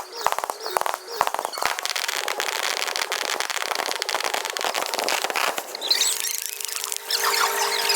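Fireworks display: a dense run of rapid crackles and small pops from crackling effects, thinning out about six seconds in, when a steady tone comes in.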